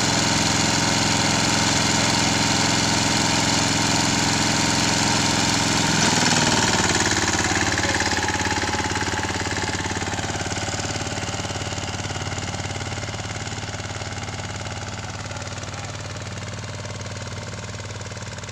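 Mahindra Yuvraj 215 tractor's single-cylinder diesel engine running steadily as it pulls a disc harrow through tilled soil. It is loudest about six seconds in, then fades steadily as the tractor moves away.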